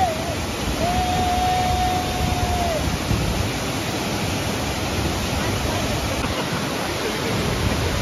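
Gollinger Waterfall's water rushing down onto rocks in a steady, even noise. About a second in, a single high held tone sounds over it for about two seconds and dips slightly as it ends.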